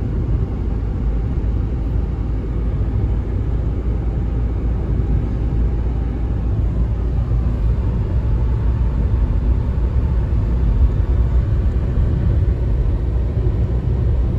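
Steady low rumble of a car driving along a highway, heard from inside the cabin: road and engine noise with no distinct events.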